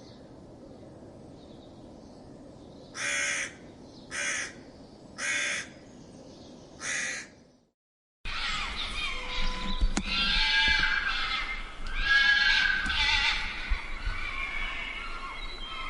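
Fox calling: four short, harsh barks about a second apart over a steady hiss. After a brief silence, a busier run of wavering, overlapping yelps and whines.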